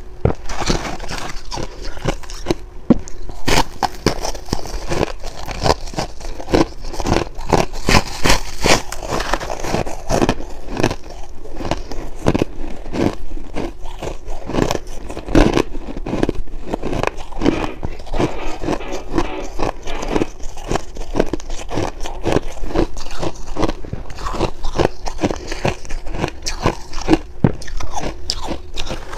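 Shaved ice being chewed: a dense, unbroken run of crisp, irregular crunches.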